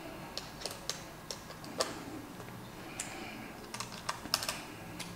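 Small, irregular metal clicks of a 4 mm hex key seating in and turning the screws of a plastic three-bolt cycling cleat as they are tightened, about a dozen over a few seconds with a quick cluster near the end.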